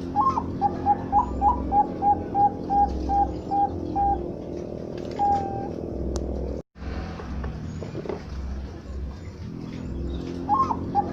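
Zebra dove (perkutut, Bangkok song strain) cooing. Its phrase opens with a couple of rising notes, runs into about ten short, evenly spaced coos and ends on a longer held note. It starts again near the end.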